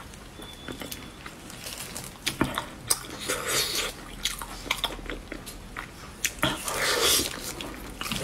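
Close-up eating sounds of a large Chinese blood sausage being bitten and chewed through its tough, chewy casing: many wet smacking clicks, with two louder, longer wet stretches about three and a half and seven seconds in.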